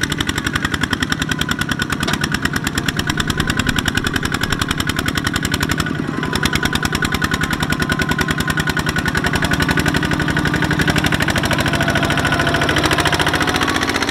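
Two-wheel walking tractor's single-cylinder diesel engine running hard under load as it drives through deep mud, a rapid, even chugging beat with a brief dip about six seconds in.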